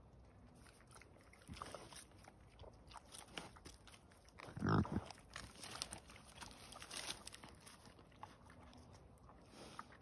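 Wild boars feeding at close range: scattered crunching and chewing of food, with one short loud grunt about halfway through.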